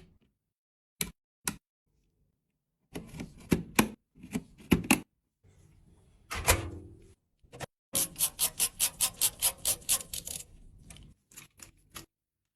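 Sharp mechanical clicks and knocks in short groups, the sounds of small hardware parts and tools being handled and fitted during a PC build. Past the middle comes a fast, even run of clicks, about seven a second for a couple of seconds, like a ratcheting tool or a part clicking into place.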